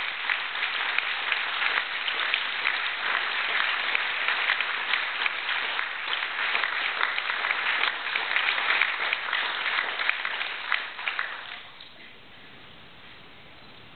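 Audience applauding with dense, steady clapping that dies away about eleven to twelve seconds in.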